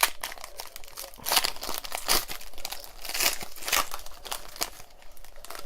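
Trading-card pack wrapper crinkling and crackling in the hands in a run of short bursts, with a few tearing sounds, as a pack is handled and opened.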